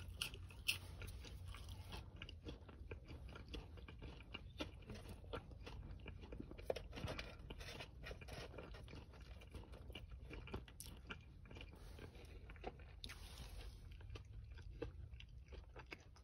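Close-up chewing of breaded fried chicken tenders: a mouth crunching and biting, with many small irregular crunches throughout.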